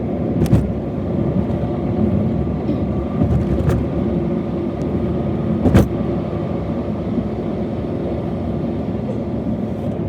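Steady car or traffic rumble, with three short sharp clicks about half a second, nearly four and nearly six seconds in.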